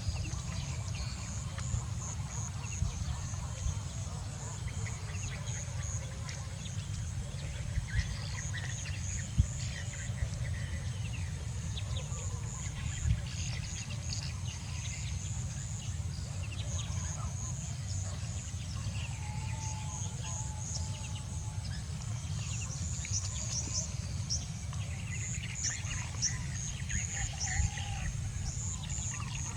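Outdoor rural ambience: many short, high chirps, with now and then a brief lower call, over a steady low rumble.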